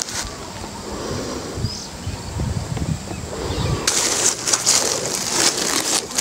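Footsteps walking through grass, then from about four seconds in the crunch and rustle of dry fallen leaves underfoot.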